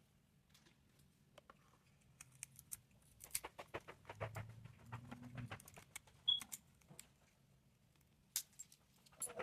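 Small hand tools clicking and tapping against a phone's glass back and frame in quick, irregular runs of ticks, with one sharper click a little past the middle, over a faint low hum.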